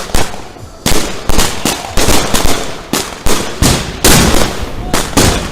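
Fireworks going off in rapid succession: more than a dozen sharp bangs at uneven intervals, about two or three a second.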